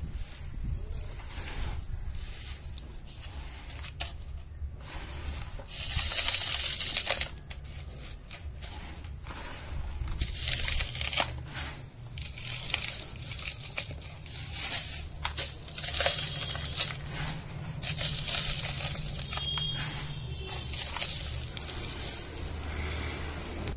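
Dry, dusty sand poured and crumbled by hand into a small plastic cup: a gritty hiss of falling grains that swells in several pours of a second or two, with small crunches, over a low steady hum.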